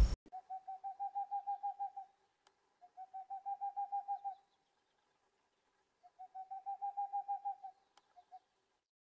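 A night animal calling: three runs of quick, evenly spaced hooting notes on one pitch, each run about one and a half seconds long, with a faint steady hum underneath.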